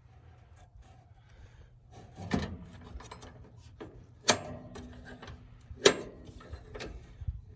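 A plastic mud flap being fitted into a mud flap clamp: three sharp knocks about two seconds apart, with lighter clicks and handling noise between them.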